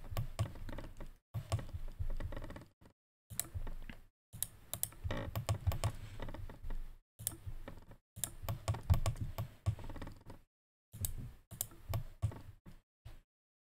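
Computer keyboard keys and mouse buttons clicking in short, irregular bursts, with dead silence between the bursts.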